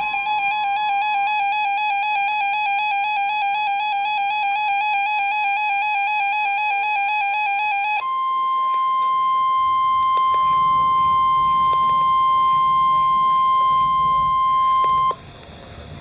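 Emergency alert tones from a NOAA Weather Radio broadcast. A harsh, beating two-tone Emergency Alert System attention signal sounds for about eight seconds. It switches abruptly to the single steady weather-radio warning alarm tone, which cuts off sharply about a second before the end, leaving faint radio hiss.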